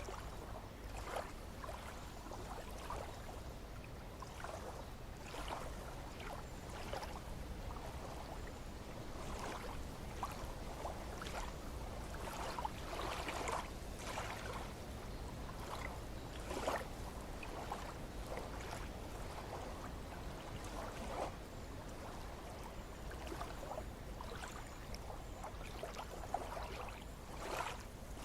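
Small lake waves lapping and splashing irregularly against the shore or a hull, over a steady low rumble.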